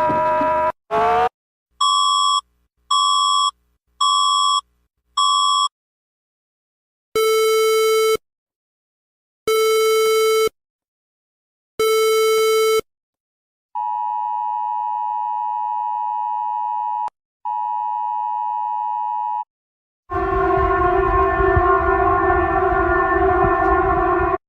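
A run of different emergency alert tones played back to back: four short beeps about a second apart, then three longer, lower, buzzy tones, then a long steady tone that breaks once briefly, and about 20 seconds in a harsh, buzzy alarm tone.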